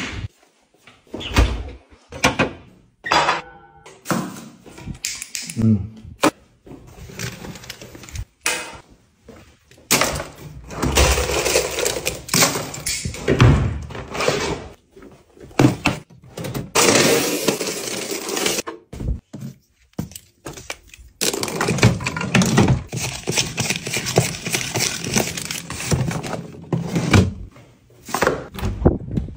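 Small hard objects being handled: a string of separate knocks and clatters as things are picked up and set down, then longer stretches of rattling as a hand rummages through a plastic bin of small packaged items.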